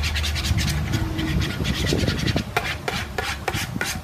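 Hand mixing glue and shaving cream in a plastic bowl: a fast, irregular run of short squelching and rubbing clicks, over a steady low rumble of highway traffic.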